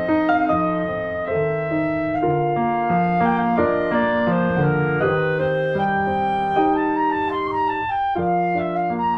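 Instrumental background music: a melody of held notes over piano, with a brief break near the end.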